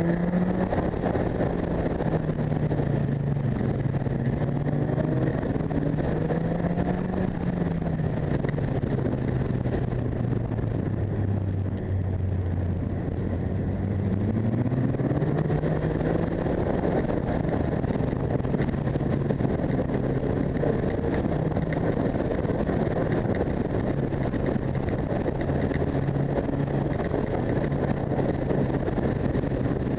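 Motorcycle engine heard from on board the bike, with wind rushing over the microphone. The engine note sinks to its lowest about a third of the way in as the bike slows, climbs again near the middle as it accelerates, then holds steady.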